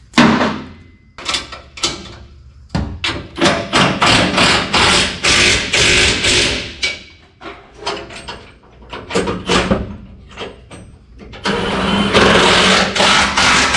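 Impact wrench running in a series of rattling bursts, some short and some several seconds long, driving the bolts that hold a truck bed down to the frame.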